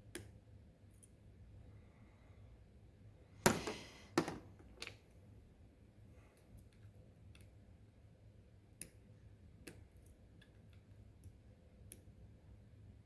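Scattered small sharp clicks of lock picks and a tension wrench working an ASSA 6000 pin-tumbler lock, with a louder clatter of several clicks about three and a half to five seconds in.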